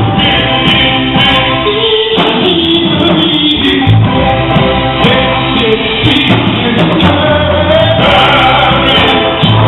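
Live gospel music: male gospel group singing over bass, keyboard and drums.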